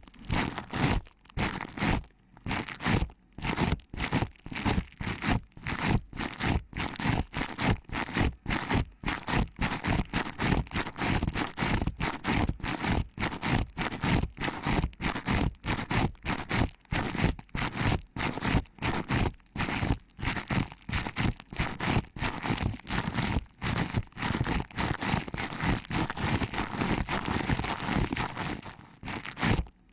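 Fingers pinching and kneading the ears of a binaural microphone, giving rapid rustling, crunching scrapes about two to three a second.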